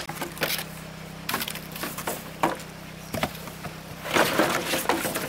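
Wood cracking and splintering: a string of sharp snaps and knocks, then a louder, denser crackle about four seconds in.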